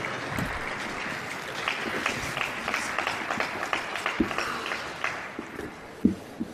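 Scattered hand clapping from a small group, with single claps heard one by one, thinning out after about five seconds. A single sharp thump comes near the end.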